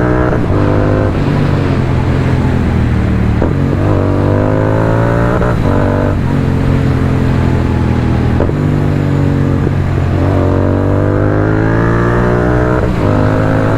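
Royal Enfield 650 parallel-twin engine through Red Rooster aftermarket exhausts, ridden and revving: its pitch climbs in several pulls, each broken by a short dip as the throttle closes between them. The note is loud but not harsh.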